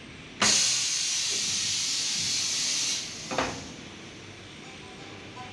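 A plastic ball production machine lets out a loud hiss. It starts suddenly about half a second in, holds steady for about two and a half seconds and cuts off, followed by a second, shorter hiss that fades away.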